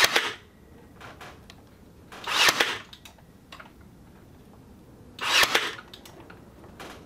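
Brad nailer firing three times, about two and a half to three seconds apart, driving nails through an upright leg into the crate's frame rail.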